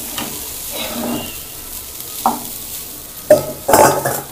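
Cooked rice tipped from a steel bowl into a hot pan of ghee-fried spice powder and stirred with a wooden spatula, over a faint sizzle. A few knocks of utensil on pan, the loudest near the end.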